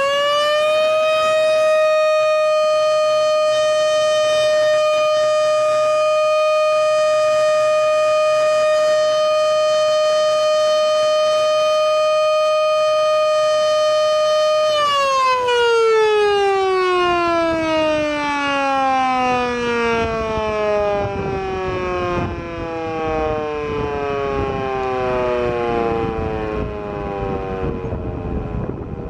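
Full-scale mechanical air raid siren sounding loud: its wail finishes climbing about a second in, then holds one steady high tone for around fourteen seconds. It then winds down, the pitch sliding lower in overlapping falling tones that fade as the rotor slows.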